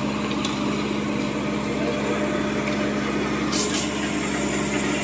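Ajax self-loading concrete mixer's diesel engine running steadily while the drum turns to discharge concrete down its chute, with a short hiss about three and a half seconds in.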